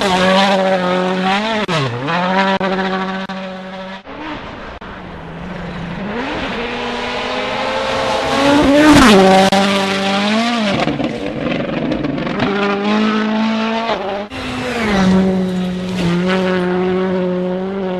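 WRC rally car engine running hard, its pitch holding steady, then dipping and rising with the throttle. The sound cuts off suddenly twice, about 4 and 14 seconds in, and picks up again.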